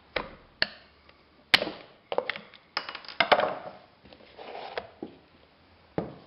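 Irregular sharp clicks and knocks of a tool and parts being handled as a wheel is taken off a push reel lawn mower: a tool works at the wheel hub, then the wheel is pulled off its axle and set down on the workbench.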